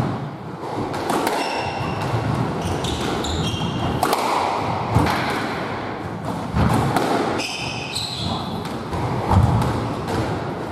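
Squash rally: the ball hit by rackets and off the court walls, a handful of sharp hits a second or more apart, with rubber-soled court shoes squeaking in short bursts on the wooden floor.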